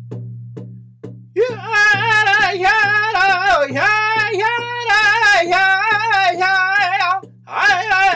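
A lone singer performing an honor song in a high, wavering voice over a steady drum beat of about two strikes a second. The drum plays alone at first and the voice comes in about a second and a half in, with a brief pause for breath near the end.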